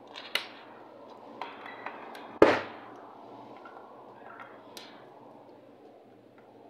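Screws being backed out of an Ascom 9000 Plus repeater's metal cover with a screwdriver: several sharp metallic clicks and clinks, the loudest about two and a half seconds in, a clank that rings briefly.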